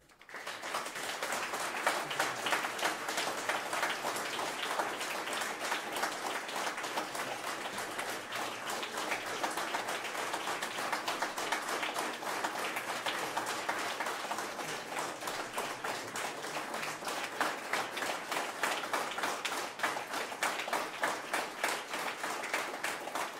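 Audience applauding: dense clapping that breaks out suddenly and keeps up steadily.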